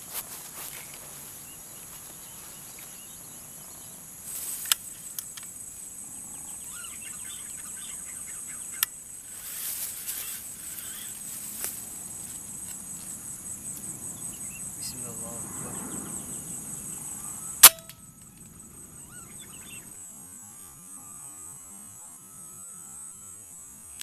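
A steady, high insect chorus in the background. About two-thirds of the way through comes a single sharp crack from a PCP air rifle firing at a perched green pigeon.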